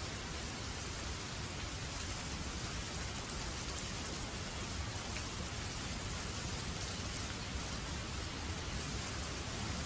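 Steady, even rainfall, a dense hiss of drops with a deep low rumble underneath and no separate drops or claps standing out.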